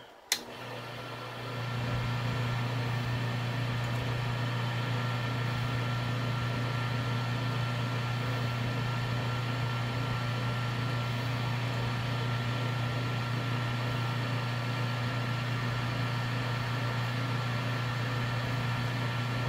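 Harbor Freight mini wood lathe switched on with a click, its motor spinning up over about a second and a half, then running steadily with an even hum and a faint whine.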